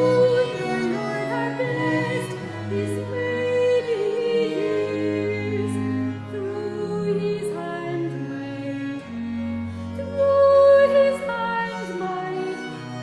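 A consort of viols playing slow, sustained polyphonic music, several bowed parts moving in overlapping long notes.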